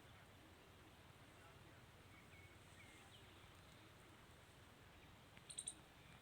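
Near silence: faint outdoor ambience, with a few faint high chirps a little past two seconds in and a quick cluster of sharp clicks near the end.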